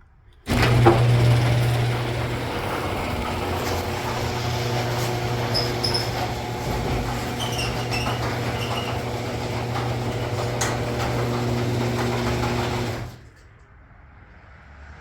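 Electric garage door opener running the door through its travel: a steady motor hum with the door rattling along its track, starting with a clunk about half a second in and stopping abruptly after about twelve and a half seconds. A few short high squeaks come near the middle.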